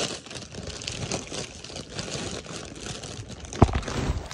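Crinkling and rustling of a shiny plastic gift bag being handled close to the microphone, with one sharp thump about three and a half seconds in.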